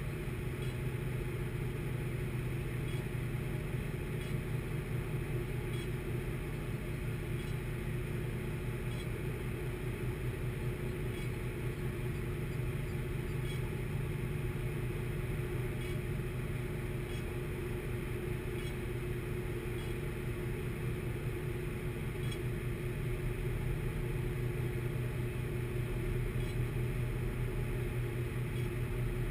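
Steady low drone of a workboat's engine machinery running on board: an even hum with a fainter, higher tone above it, unchanging throughout.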